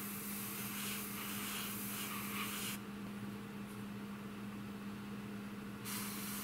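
Airbrush spraying paint in two stretches of hiss: one lasting nearly three seconds, then a pause, then another starting near the end. A steady low hum runs underneath.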